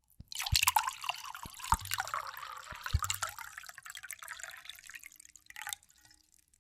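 Liquid being poured, splashing and dripping, with several sharp clicks and a few deeper knocks along the way. It starts suddenly and trails away near the end.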